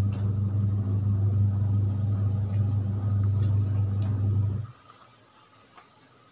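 A steady low hum that cuts off suddenly a little past the midpoint, leaving a much quieter background.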